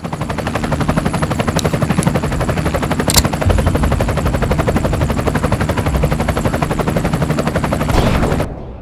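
A fast, even mechanical rattle of more than ten pulses a second over a low steady hum, with a sharp click about three seconds in; it cuts off shortly before the end.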